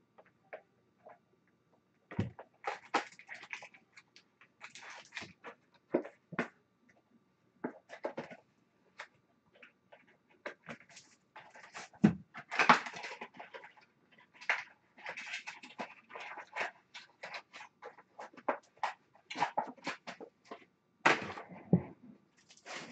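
Cardboard trading-card hobby box being torn open and broken down by hand: irregular bursts of ripping, crinkling and rustling with sharp knocks, loudest about twelve seconds in.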